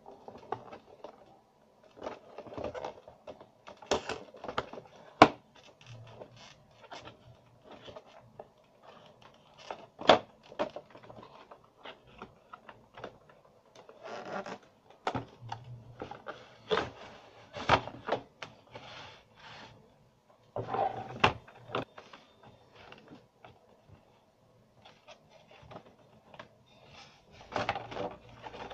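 Cardboard box and plastic packaging being handled and unpacked: cardboard rubbing and scraping as the inner tray slides out, with scattered clicks and knocks on a wooden desk, the sharpest about five and ten seconds in.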